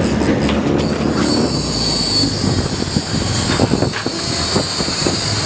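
Fishing reel drag giving a steady high whine from about a second in as a hooked fish pulls line off, over the rumble of the boat and rushing water.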